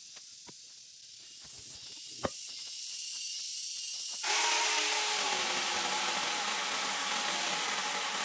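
A few faint clicks and rustles as branches are handled, then about four seconds in a handheld power saw starts suddenly and runs steadily as it cuts into a tree branch.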